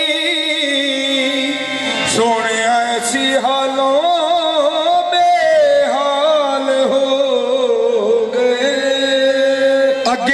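Qawwali music: harmoniums holding steady notes under a male voice singing long lines that glide and waver in pitch without clear words.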